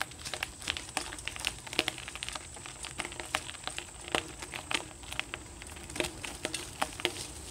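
Bicycle rolling over dry leaves, twigs and cracked asphalt: a dense, irregular run of crackles and clicks from the tyres and the rattling bike.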